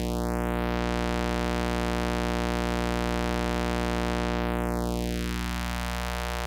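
Buzzy square wave from a modular synth oscillator run through a Doepfer A-127 filter set to notch. The notch sweeps up through the sound in the first second, holds, then sweeps back down near the end, hollowing out one band of the tone as it moves.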